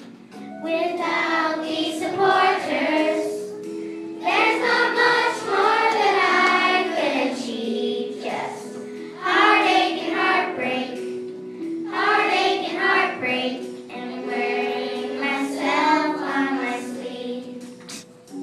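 Children singing a song in phrases of a few seconds, over a steady instrumental accompaniment.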